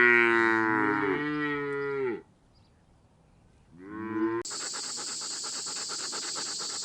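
A large animal's long, drawn-out lowing call lasting about two seconds, then a second, shorter call. About four and a half seconds in, a steady high hiss with a fast rattle in it takes over.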